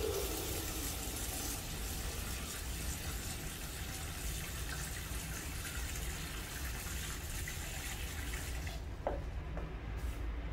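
Thin stream of filtered water from a TCR carbon inline water-purifier filter pouring steadily into a paper cup, stopping near the end, followed by a light knock.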